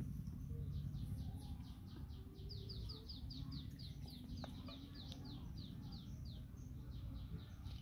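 A bird chirping in a long run of quick, high, falling notes, about five a second, over a low steady background rumble.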